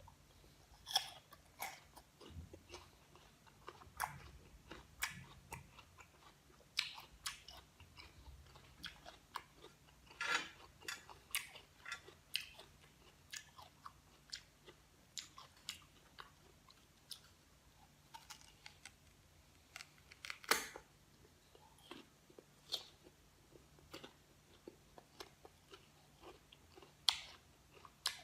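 A person chewing mouthfuls of crisp, raw green guava, with irregular crunches throughout and a few louder bites about ten, twenty and twenty-seven seconds in.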